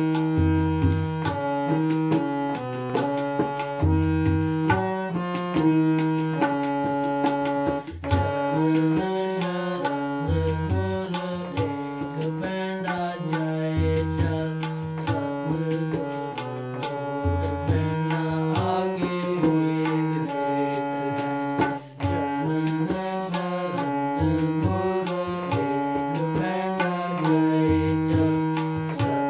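Harmonium playing a melody of held reed notes, accompanied by tabla: crisp strokes on the small treble drum and deep bass strokes on the larger drum. The playing breaks off for a moment about two-thirds of the way through, then resumes.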